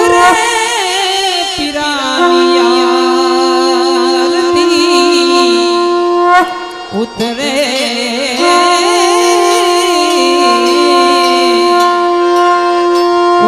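Harmonium playing the introduction to an aarti: held reed notes under a wavering melody. The sound breaks off briefly about halfway, then the held notes return.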